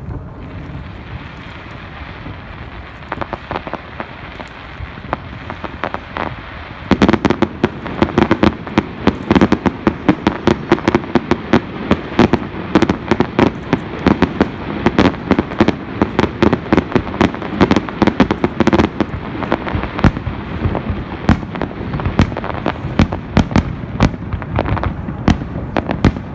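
Fireworks display: distant bangs and pops over a steady rumble. About seven seconds in it turns into a rapid barrage of loud bangs and crackles, several a second.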